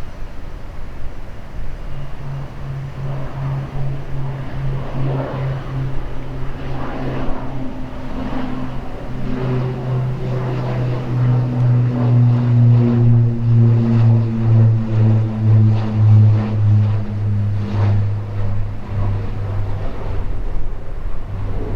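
Beech 1900C twin turboprop passing, its propellers giving a deep droning tone with a higher overtone. The drone grows loudest past the middle, throbbing with a beat of a couple of pulses a second, and its pitch sinks slightly as it goes by.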